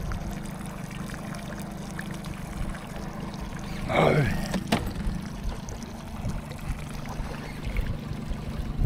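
Water trickling and lapping against a small boat's hull, under a steady low hum from the bow-mounted Minn Kota electric trolling motor. A man shouts "No" about four seconds in, and a sharp click follows just after.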